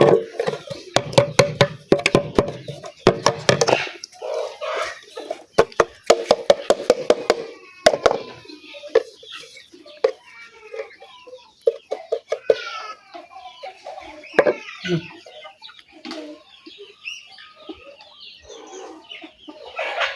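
Chickens clucking and calling, with a rooster crowing, over a run of sharp clicks and knocks in the first several seconds.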